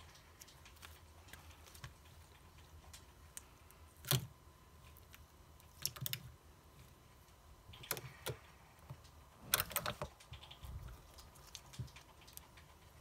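Slime being stretched, pressed and folded by hand, giving scattered sticky clicks and pops, with the loudest pop about four seconds in and a cluster near ten seconds.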